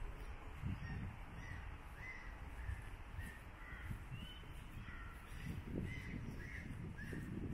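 Several birds giving short calls, about two a second, over a steady low rumble.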